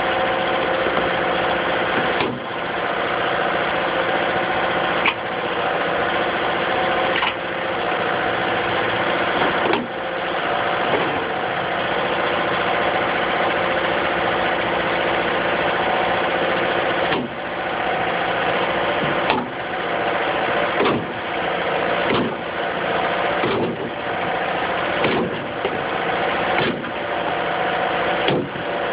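Excavator's diesel engine running steadily while its bucket knocks nails in: about a dozen sharp knocks a second or two apart, with a pause of several seconds midway.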